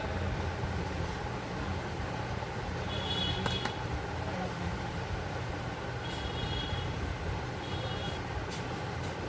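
Steady low rumbling background noise, with a few faint short clicks and brief high chirps.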